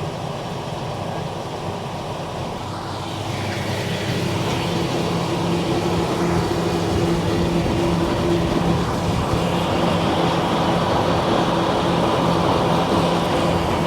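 Combine harvester's engine and threshing machinery running. It grows louder about four seconds in, then settles into a steady hum.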